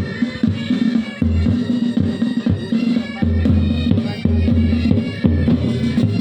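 Military band playing live: a sustained wind-instrument melody over a steady held tone, with regular bass drum beats underneath.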